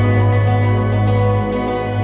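Background music: calm, sustained instrumental music with a held low note and long steady tones.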